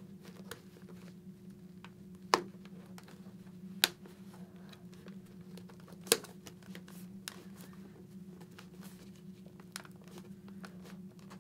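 Hands fitting a foam-and-fabric helmet cheek pad into the shell: soft rustling with scattered small clicks and taps, and three sharper clicks about two, four and six seconds in. A faint steady hum runs underneath.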